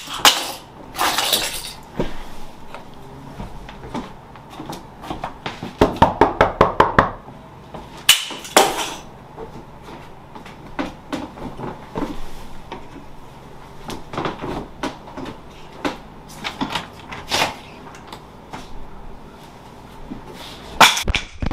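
Knocking on a wooden front door, a quick run of about eight knocks some six seconds in, among scattered clicks and thumps.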